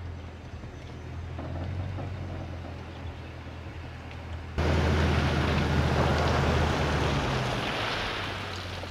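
Pickup truck engine running with a low, steady hum while it backs a boat trailer down a ramp. About four and a half seconds in, a loud rushing noise starts suddenly and fades near the end as the trailer goes into the water.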